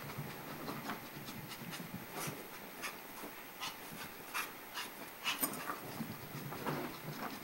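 A dog panting, with irregular short, sharp sniffs or clicks.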